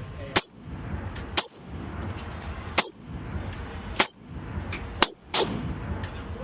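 Six semi-automatic rifle shots from an AR-10 in .308, fired singly about one to one and a half seconds apart, each a sharp loud crack.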